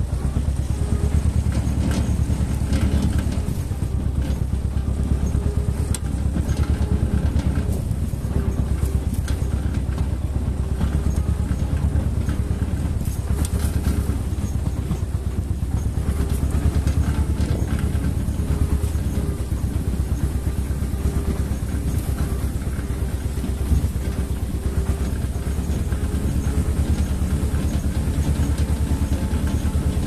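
Engine of the vehicle towing a loaded wooden trailer, running steadily under load as it pulls through a shallow river ford and up onto a muddy track. A single sharp knock sounds late on.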